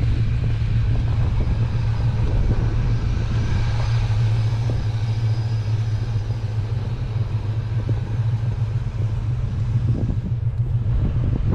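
1980 Chevy K20 pickup driving through deep snow in four-wheel low: its engine and drivetrain keep up a steady low drone and rumble.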